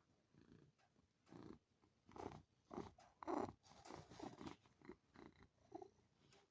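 Munchkin cat purring in short, uneven pulses, loudest about three seconds in.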